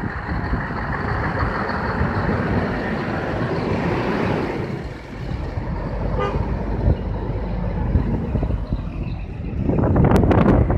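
Diesel engines of Scania tractor units rumbling as they drive slowly past in a line, with a brief horn toot. Near the end a loud rush of noise, wind buffeting the microphone.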